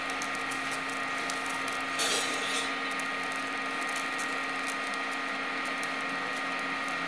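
Dried red chillies frying in hot mustard oil, a faint sizzle with fine crackles and a slightly louder crackle about two seconds in, over the steady electric hum and whine of an induction cooktop.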